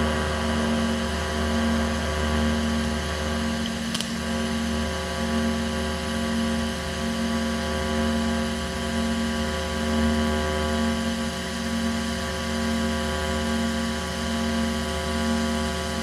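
TIG welding arc on a Vulcan OmniPro 220 running steadily during a weld pass, a buzzing hum with one tone in it that pulses a little more than once a second. A single sharp click about four seconds in.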